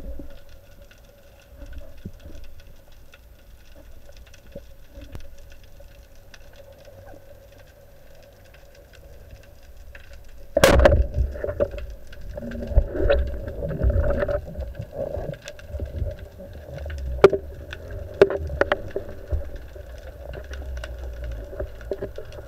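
Underwater sound picked up by a diver's camera: a low rumble with a faint steady hum and scattered sharp clicks. About ten seconds in comes a sudden loud knock, then uneven louder rumbling and knocks as the diver moves.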